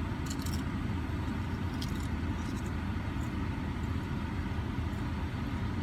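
Car running, heard from inside the cabin as a steady low rumble.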